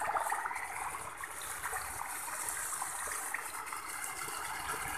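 Steady trickle of running water, with small faint ticks.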